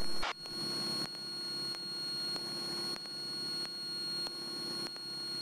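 Steady cabin drone of a Cessna 172's engine and propeller in flight, heard through the headset intercom, with a thin high electrical whine. The level drops suddenly just after the start, then swells and dips in a regular pulse.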